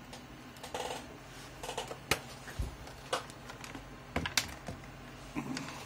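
Light, irregular clicks and taps of bench handling: the laptop's DC-jack power cable being fitted and multimeter probes being set on the motherboard.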